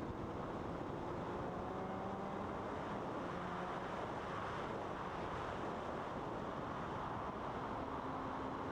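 Wind rushing over the microphone at road speed on a Triumph Daytona 675, with the bike's inline three-cylinder engine running faintly underneath, its note rising slightly about a second in.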